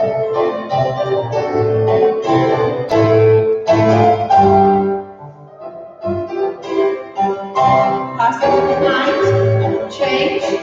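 Ballet class piano accompaniment, with a short break about halfway through.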